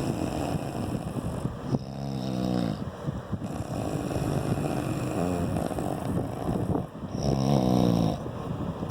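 Snoring: two loud, buzzing snores, one about two seconds in and one about seven seconds in, with rough breathing sounds between them.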